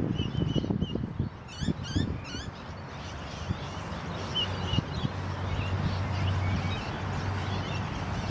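Small birds chirping and calling, with a quick run of sweeping chirps a second and a half to two and a half seconds in. Low rumbling bumps come under the first couple of seconds, then a steady low hum sets in.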